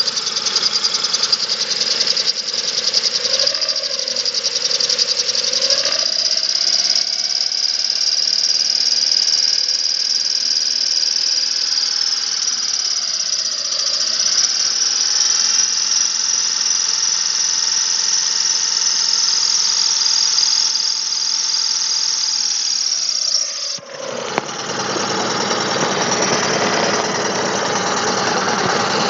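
Chevrolet Spark 0.8 L three-cylinder engine running with a rapid ticking knock, which the owner takes for valves tapping when cold because they have not been adjusted, or possibly a camshaft problem. A high whistle of unknown cause runs over it, with a lower tone that glides up, dips once and levels off; near the end the sound changes abruptly and becomes noisier.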